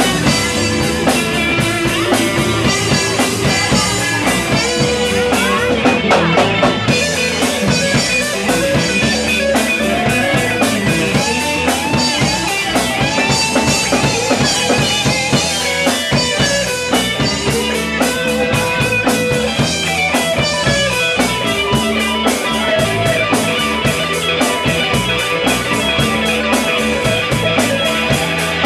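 Live rock band, led by a Stratocaster-style electric guitar playing a solo with bent, sliding notes over a drum kit and rhythm guitar.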